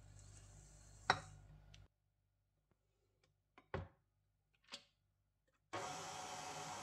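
KitchenAid Artisan stand mixer's motor running steadily as its dough hook kneads bread dough in the steel bowl; the sound comes in suddenly near the end. Before it, a low hum and a few short knocks.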